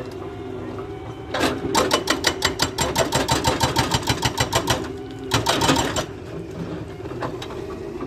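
Hydraulic breaker hammering the concrete of an old bridge during demolition, in rapid even blows about eight a second over a steady engine drone. The hammering starts about a second and a half in, stops after about three seconds, then comes again briefly.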